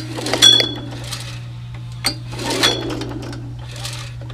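Recoil starter cord pulled on the Suzuki engine of an old Toro push mower, the crankshaft whirring over briefly with each pull, about every two seconds. The engine spins freely without compression because the spark plug is out, and it does not fire: the plug is still not making a spark.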